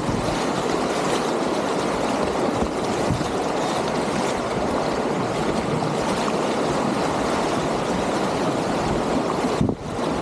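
Whitewater rapids rushing steadily, heard close up from a kayak on the river. The level dips briefly near the end.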